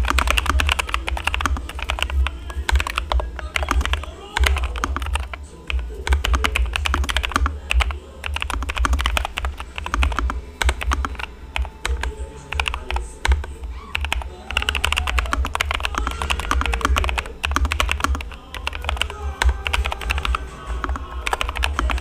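Fast, continuous touch-typing on a NuPhy Air75 V2 low-profile mechanical keyboard with Cowberry switches: a rapid run of key clacks with brief pauses, over background music.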